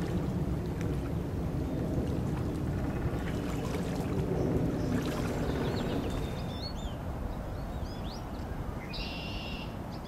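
Steady low rumble of wind and lapping water, with small songbirds chirping from about six seconds in, including a short trill near the end.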